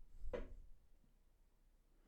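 A single short knock with a low bump, about a third of a second in, against quiet room tone.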